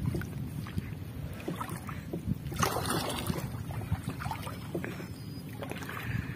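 Shallow seawater sloshing and splashing around a man's legs and a hand scoop net as he wades and sweeps it, with wind rumbling on the microphone. A louder rush of water comes about two and a half seconds in.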